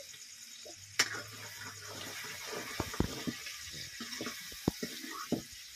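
Curry sizzling in a kadhai over a wood fire, with a steady hiss, scattered crackles and a few sharp clicks and scrapes from a spatula stirring it.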